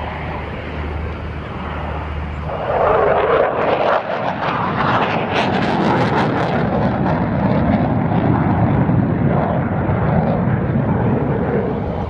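F-16 Fighting Falcon's Pratt & Whitney F100 turbofan passing overhead in a display, a continuous rushing jet noise. It grows louder about three seconds in, with a ragged crackle for a few seconds after that.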